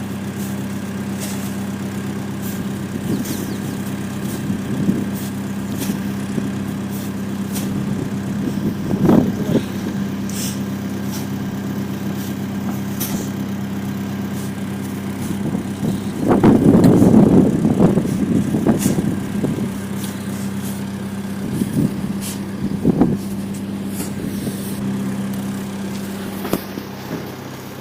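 Homemade minitractor's engine running at a steady speed, with scattered clicks and a louder, rougher stretch of about three seconds a little past the middle.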